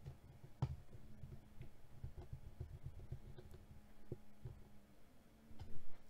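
Handling noise from hands and a screwdriver working inside an open laptop base as an M.2 SSD is secured in its slot. There are soft low thumps and a few small clicks, with one sharper, louder click near the end.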